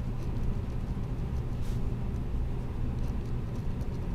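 Steady low background rumble, with faint scratching of a ballpoint pen writing on notebook paper.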